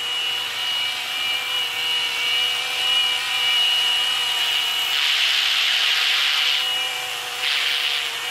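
Flywing-powered electric RC helicopter hovering: a steady multi-toned whine from its motors and spinning rotors, with a rushing noise that swells about five seconds in and again near the end.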